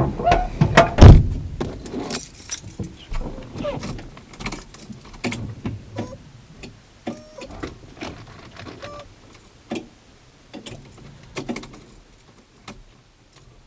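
Metal clinking and clanking, as of tools and small metal parts being handled, with a loud knock about a second in and a few short ringing metallic notes later. The sounds grow sparser toward the end.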